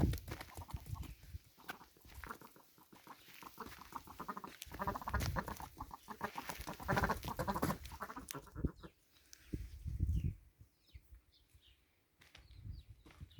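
Domestic poultry calling, with a dense run of repeated calls in the middle and faint short high chirps near the end. Low rumbles and knocks sound in the first few seconds.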